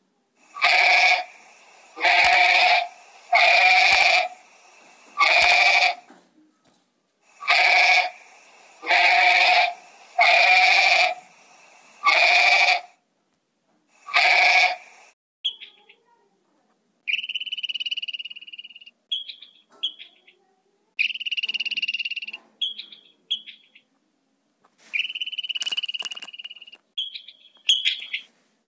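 Domestic goat bleating, nine loud calls of about a second each over the first fifteen seconds. They are followed by a run of short, high, thin squeaks and whistles of varying length.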